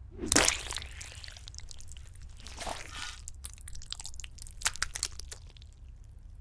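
Wet, mushy food landing on a plate with a loud splat about half a second in, followed by softer squelching and a run of short light clicks.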